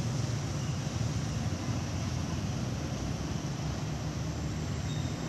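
Steady low rumble of background noise, even throughout, with no distinct sound from the monkey.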